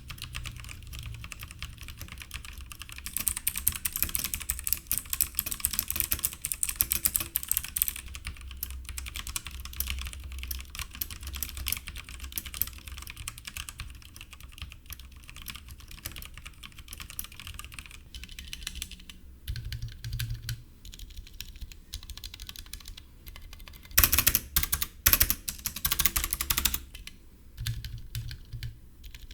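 Typing on a Logitech G Pro X mechanical keyboard with its Kailh-made GX hot-swap switches: a continuous run of key clacks, busier for a few seconds early in and in a loud flurry about 24 seconds in that lasts about three seconds.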